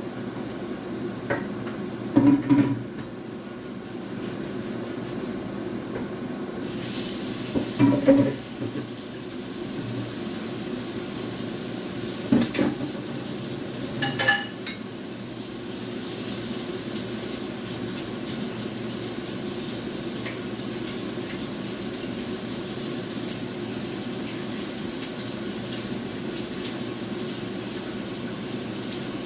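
Pots, pans and utensils clatter and knock a few times over a steady low hum. A steady hiss begins about a quarter of the way in and runs on.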